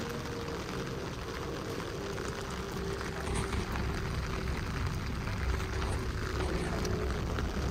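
Heavy rain falling, with a steady low rumble and a faint steady hum underneath.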